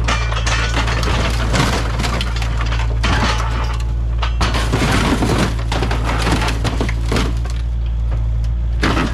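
Kubota KX057 mini excavator's diesel engine running steadily while its grapple claw tears into a minibus's front end, with repeated bouts of crunching, cracking and splintering as the body panels and frame give way.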